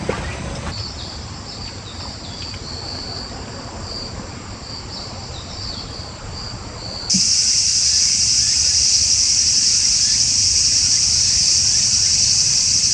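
Insects chirping in an uneven, fluttering high trill, then about seven seconds in, a much louder, dense and steady high-pitched insect chorus sets in suddenly.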